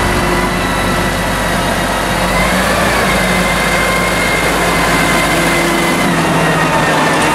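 Valtra tractor's diesel engine running steadily as the tractor drives slowly past close by. A steady whine sits over the engine and rises slightly in pitch about two and a half seconds in.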